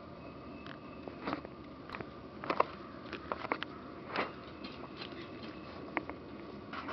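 Plott Hound puppies moving about on brick paving: scattered soft taps and scuffs, with one louder one about two and a half seconds in.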